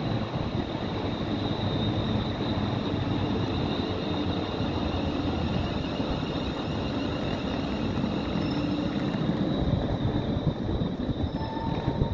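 London Northwestern Railway Class 350 Desiro electric multiple unit running slowly through the platform: steady wheel-on-rail and running noise with a high electrical whine throughout.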